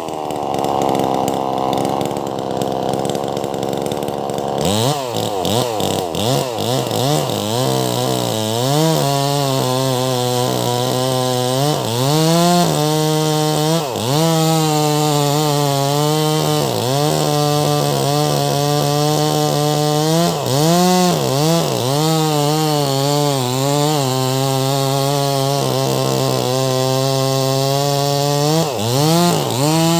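Two-stroke Wagner 580 chainsaw with a 24-inch bar ripping lengthwise through a large log at high speed. The engine note repeatedly sags as the chain bites and climbs back as the load eases.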